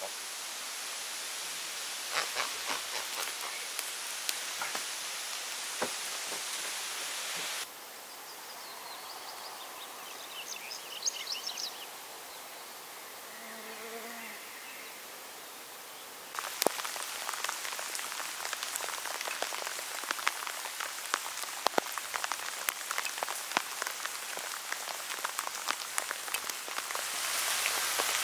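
Rain falling, with many sharp drops ticking close by. There is a quieter stretch in the middle with a few faint high chirps, and the rain grows louder near the end.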